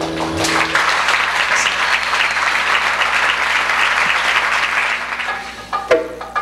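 Audience applauding after an acoustic band finishes a piece; the band's last held notes die away in the first second. Near the end the clapping thins and sharp percussive notes of the next piece begin.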